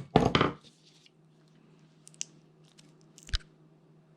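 A quick run of sharp knocks at the start as the small plastic phone parts are worked on, then faint clicks of handling and prying, with one louder click a little over three seconds in.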